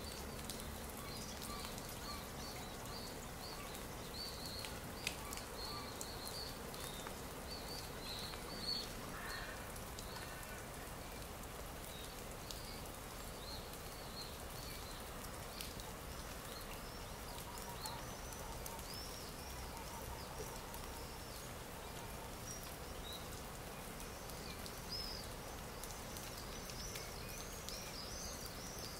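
Stock nature-sound recording of small birds chirping in many short, high calls over a steady background noise, with the chirps growing busier near the end. Two brief sharp clicks come about five and nine seconds in.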